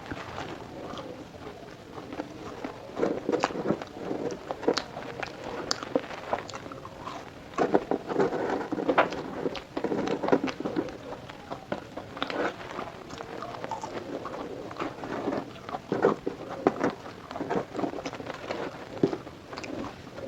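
A person biting and chewing crunchy fried food close to the microphone, with irregular crackling crunches throughout.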